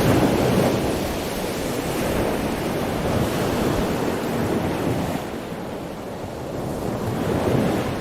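Ocean surf: waves washing in and drawing back in a continuous rush that swells and eases, quietest a little past halfway and building again near the end, with some wind noise on the microphone.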